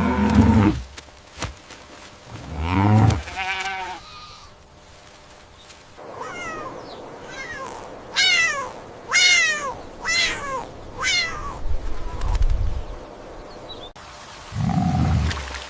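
Farm animal calls: a deep call at the start, a pitched call about three seconds in, then a run of about eight short, falling calls between six and twelve seconds in.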